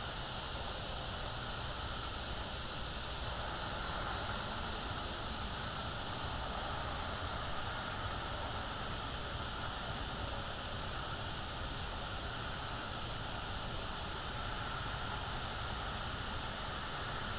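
Steady outdoor ambience from an open-air nest camera microphone: an even hiss with a constant high-pitched hum running through it, with no distinct calls or knocks.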